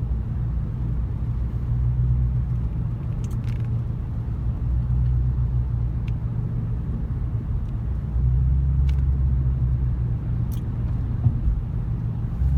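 Engine running with a low, steady drone that swells a little now and then, as from a moving vehicle or boat, with a few faint ticks over it.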